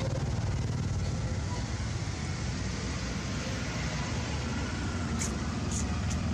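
A steady low rumble and hum of a running motor, with an even haze of noise over it and a few brief high ticks about five seconds in.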